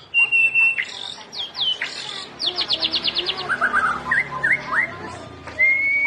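White-rumped shama (murai batu) singing a varied song of clear whistles: held notes, quick down-sweeping whistles, and a fast run of about ten short notes a second near the middle. A long whistle rises slightly near the end.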